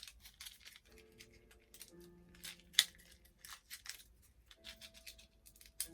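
Plastic toy packaging crinkling and clicking as it is handled and cut with scissors, in short irregular snips and rustles. Soft background music with held notes runs underneath.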